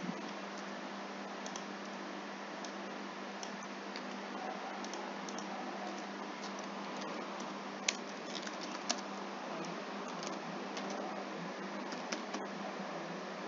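Computer keyboard typing: sparse key clicks, with two sharper clicks about a second apart past the middle, over a steady background hiss and a low hum.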